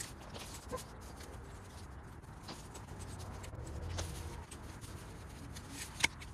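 Dry, frost-damaged daylily leaves rustling and crackling as they are gathered by hand and snipped with pruning shears, with scattered small clicks and one sharp click about six seconds in.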